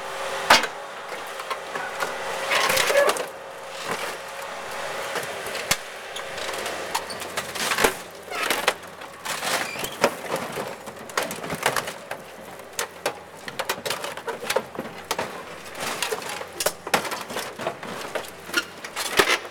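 An excavator crushing the body of an old Mercedes 300D sedan: irregular crunching, cracking and knocking of metal and breaking parts, with a faint steady tone in the first few seconds.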